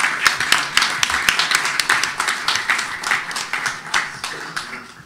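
Audience applauding: many hands clapping in a dense patter that thins out and dies away near the end.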